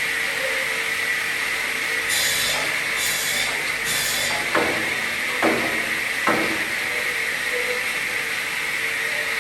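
A carousel circular saw for cutting pallet blocks runs with a steady whine and hum. About two seconds in there are three short hissing passes about a second apart, then three sharp wooden knocks.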